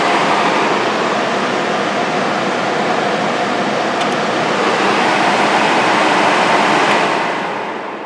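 Salvaged furnace squirrel-cage blower of a homemade 15 kW electric heater running, a steady loud rush of air with a low hum. The rush fades away over the last second or so, with a faint click about four seconds in.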